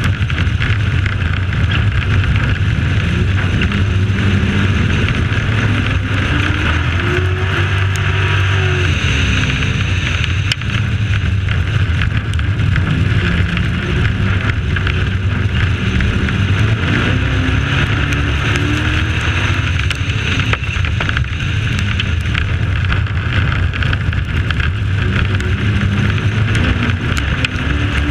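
Dirt-track race truck's engine running hard at racing speed, its pitch rising and falling in slow swells about every ten seconds as the truck goes through the corners and down the straights, over a steady rushing noise.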